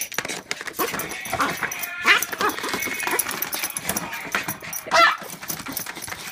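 Small dog whining and yipping in short, excited cries while pawing at a paper card, with two louder rising yelps, about two seconds in and about five seconds in.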